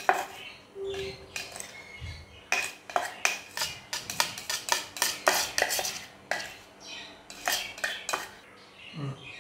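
A spoon knocking and scraping in a plastic vegetable chopper's bowl as chopped capsicum is tapped out into a bowl. The knocks come in a quick, uneven run through the middle, with fewer near the start and end.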